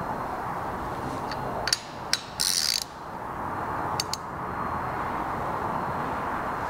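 Hand ratchet clicking as it is worked on the cylinder head bolts of a Vespa 150 engine during angle-tightening. A few sharp clicks, then a short burst of rapid ratcheting about two and a half seconds in, and two more clicks a little later, over a steady background hum.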